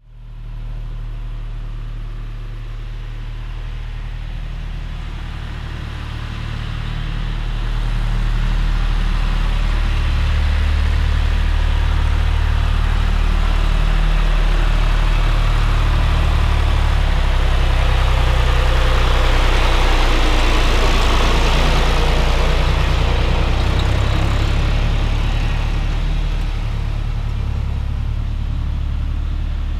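Tractor engine running steadily as it pulls a loader wagon, growing louder from about a quarter of the way in, loudest past the middle, then easing off slightly near the end.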